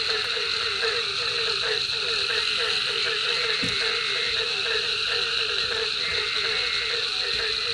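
Night chorus of frogs and insects at a pond: a steady high insect drone under a frog calling in quick, evenly repeated low notes, several a second.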